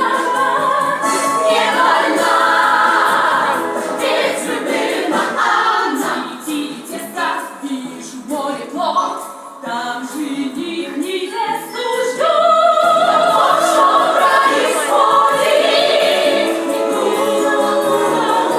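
A song with choir-like singing over musical accompaniment. It drops quieter in the middle and swells back up about twelve seconds in.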